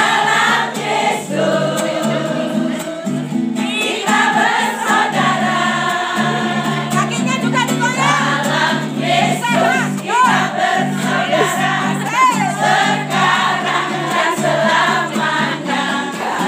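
A group of women singing together in unison to a strummed acoustic guitar.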